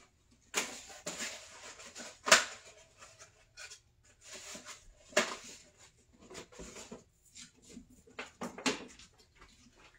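Scattered knocks and clatters of things being handled in a kitchen, the sharpest a single knock about two seconds in.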